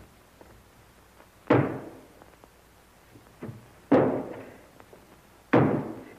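Three heavy thuds, about two seconds apart, each dying away over about half a second.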